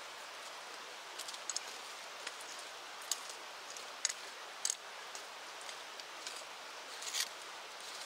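Steady rush of river water with a wood fire crackling over it: scattered sharp pops, a couple of louder ones around the middle and a short burst of crackles near the end.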